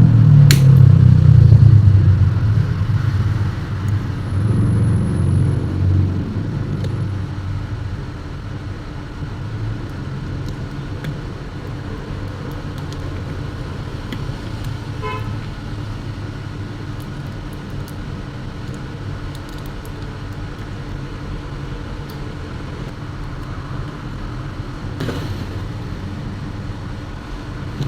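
Road traffic: a loud low vehicle rumble that fades over the first several seconds into a steady traffic hum, with a brief vehicle horn toot midway and a few light clicks.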